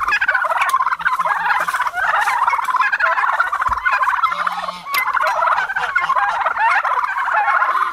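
A flock of domestic turkeys gobbling without pause, many calls overlapping into a dense warbling chorus.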